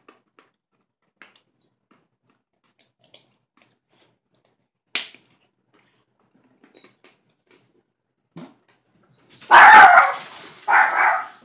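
A pet dog barking loudly, two barks near the end.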